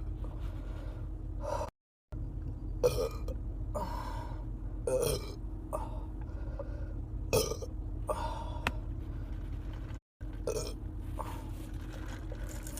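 A woman burping over and over: about ten short burps, roughly one a second, over a steady low hum. Twice the sound drops out briefly to dead silence where clips are joined.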